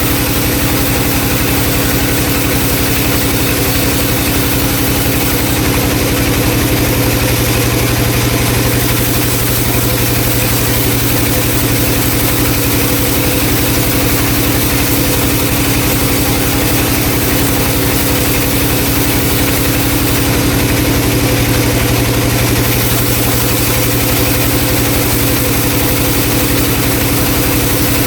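Vertical band saw running steadily while it cuts through a round log: a continuous loud mechanical drone with a steady hum underneath.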